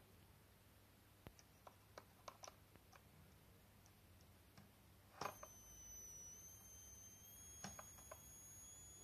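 Faint clicks, then a sharper click a little after five seconds, when coil whine from the YH11087A MPPT solar regulator's inductor starts: a steady high-pitched whine near 7 kHz that steps slightly up in pitch twice. The whine comes when the output current rises high enough that the current limiter is no longer limiting it.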